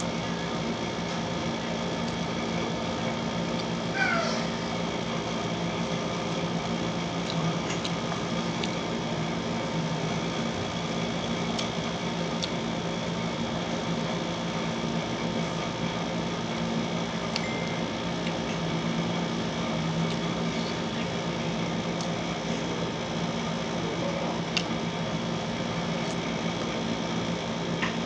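Window air conditioner running with a steady mechanical hum. About four seconds in, a short high-pitched cry bends in pitch over it, with a few faint clicks scattered through.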